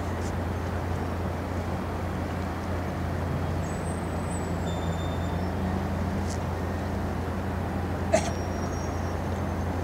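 Steady low hum of ships' diesel engines across the harbour, with a single sharp knock about eight seconds in.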